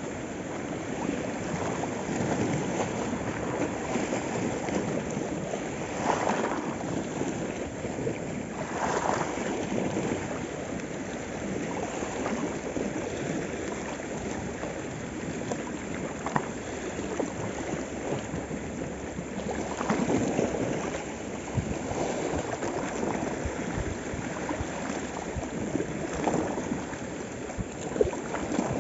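Small sea waves washing and splashing over shoreline rocks: a steady wash that swells louder every several seconds as each wave breaks.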